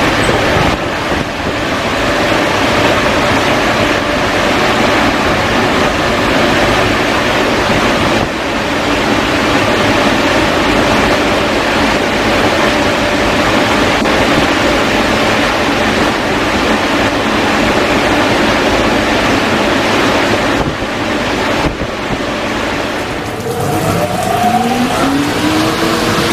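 Car-wash dryer blowers running at full power: a loud, steady rush of air with a faint steady whine. Near the end a blower winds up, its whine rising and then holding steady.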